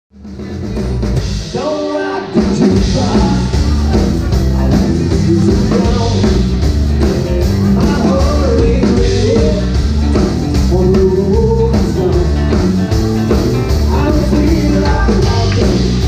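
Live country band playing: a man singing over bass guitar, electric and acoustic guitars and a drum kit with a steady beat.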